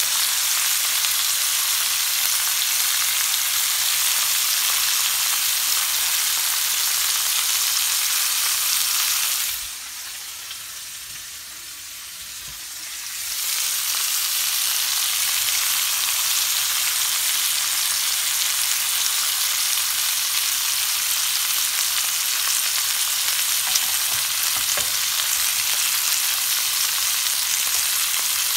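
Marinated pork chops sizzling in a ridged grill pan, a steady high hiss that drops away for about four seconds in the middle and then comes back.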